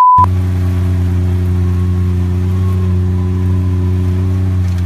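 Car engine running at a steady speed, a low even drone with no change in pitch. At the very start a short, loud high beep sounds for about a quarter of a second.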